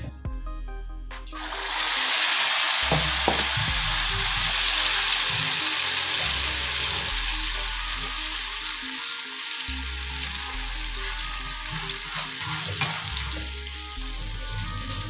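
Egg-and-potato snack pieces dropped into hot refined oil in an iron kadai, sizzling loudly as they begin to deep-fry. The sizzle starts about a second in and slowly eases off.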